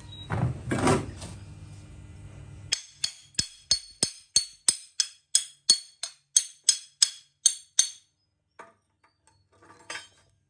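Hammer striking metal in a quick, even run of ringing blows, a few a second, that begins about three seconds in and stops about eight seconds in. A steady low hum and noise come before it.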